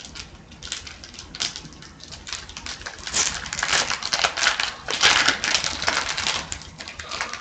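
Upper Deck hockey card pack being opened and handled: rapid, irregular crackling and rustling of the wrapper and cards, loudest about three and five seconds in.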